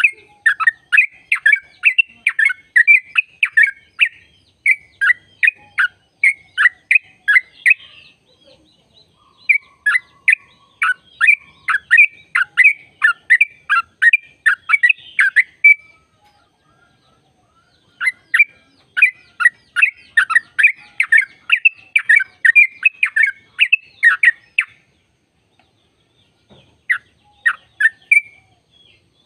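Yellow-vented bulbul (trucukan) singing its long rolled 'ropel' song: rapid runs of sharp falling chirps, about three a second. It comes in four bursts with short pauses between them, the last one brief.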